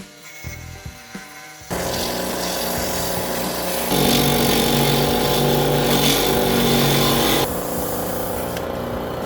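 Wood lathe starting up and running, with a turning tool cutting into a spinning wooden handle blank. The cut is loudest from about four seconds in until about seven and a half seconds in, then eases back to the lathe's steady running.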